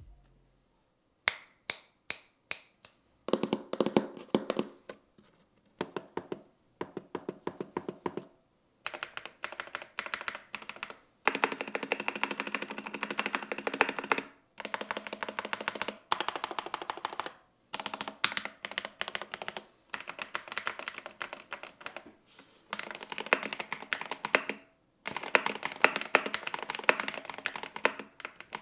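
Typing on a DrunkDeer A75 keyboard with magnetic Hall effect switches and ABS keycaps: a few single keystrokes at first, then bursts of fast typing, each a few seconds long, with short pauses between them.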